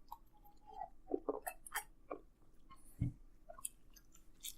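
A person chewing a mouthful of pizza sandwich: faint, scattered wet mouth clicks and smacks, with one dull thump about three seconds in.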